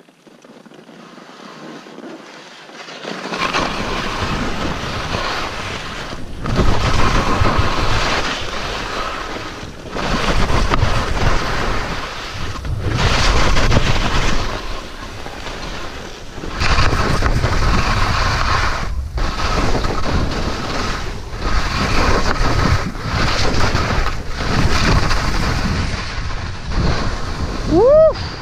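Skis scraping and sliding down a steep snow couloir, with wind rushing on a helmet camera's microphone; the noise swells and dips with each turn, every two to three seconds. A short rising whoop just before the end.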